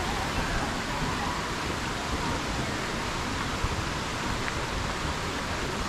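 Steady rush of falling water from Lower Latourell Falls, a waterfall that drops straight down from a basalt cliff.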